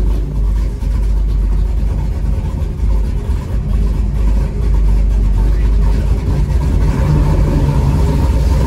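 Classic car's engine running at low, steady speed as it rolls slowly, heard from inside the cabin as a deep rumble. It grows a little louder about seven seconds in.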